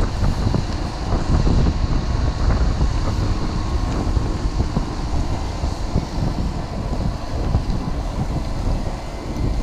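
Wind buffeting the microphone of a handlebar-mounted camera on a moving road bike: a steady, dense low rumble of rushing air.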